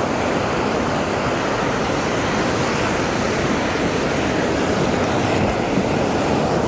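Ocean surf breaking and washing up the beach close by: a steady rush of noise.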